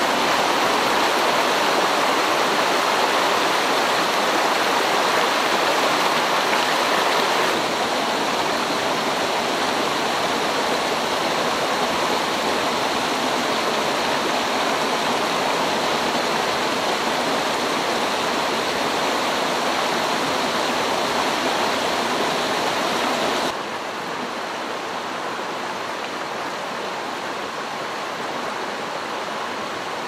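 Shallow mountain stream running over rocks and stony riffles: a steady rush of water. It drops a step in loudness twice, about a quarter of the way through and again about three-quarters of the way through.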